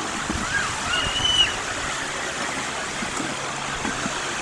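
Steady wash of sea waves breaking on a beach, with a few faint distant high shouts over it.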